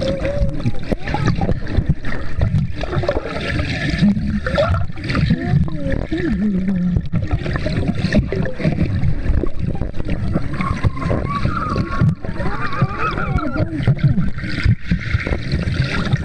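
Waterproof camera held underwater in a swimming pool: loud sloshing, gurgling water noise against the housing, with children's voices rising and falling but no words coming through.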